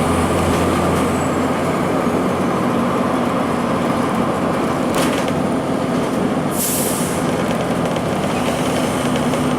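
Inside a 2002 Blue Bird CS transit bus under way: its Cummins ISC six-cylinder diesel running with steady road and cabin noise. A sharp knock comes about five seconds in, and a short hiss of air about a second and a half later, typical of the bus's air brakes.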